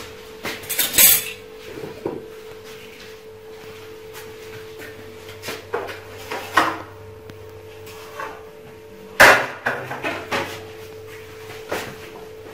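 Knife knocking on a granite worktop while semolina dough for date makrout is cut into pieces: irregular sharp knocks, the loudest about nine seconds in, over a steady hum.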